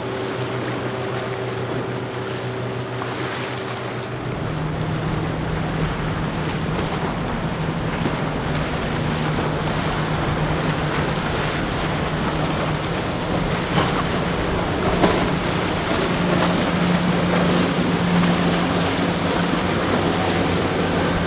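Motorboat engines running with rushing water and wave noise. About four seconds in, a different boat's engine note takes over, with more low rumble and slightly louder water noise. A couple of short sharp knocks come a little past the middle.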